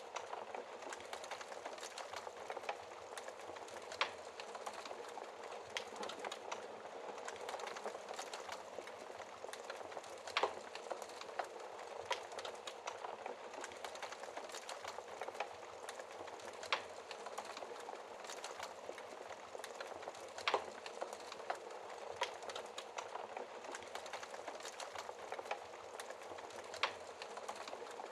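Wood fire crackling: a steady hiss with a dense run of small ticks, and about five louder pops spaced several seconds apart.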